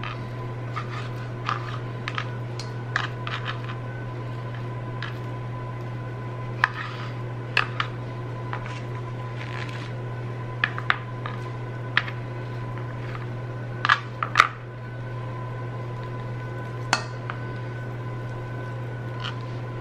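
Chef's knife cutting raw pork tenderloin on a plastic cutting board: scattered sharp taps and clicks of the blade on the board, with a few louder knocks about fourteen seconds in, over a steady low hum.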